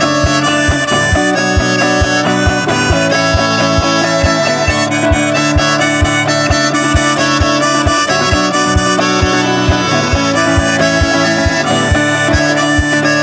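Live folk instrumental break: a harmonica playing over strummed acoustic guitar, with a steady low beat at about three a second.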